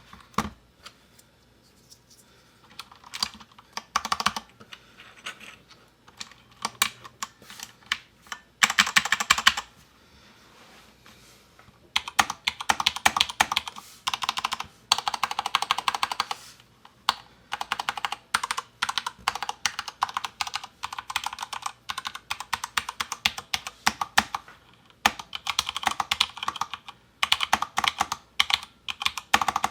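Typing on a DURGOD Fusion mechanical keyboard with Cherry MX Speed Silver linear switches and PBT keycaps: bursts of rapid key clacks, with a pause of about two seconds around ten seconds in.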